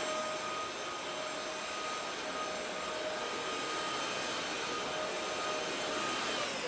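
Cordless stick vacuum running steadily on its second, higher speed, a constant motor whine over the rush of air. Near the very end its pitch begins to fall as the motor winds down.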